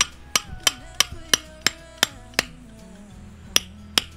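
A hammer driving a metal tent peg into gravel ground: eight quick, ringing strikes, a pause, then two more near the end.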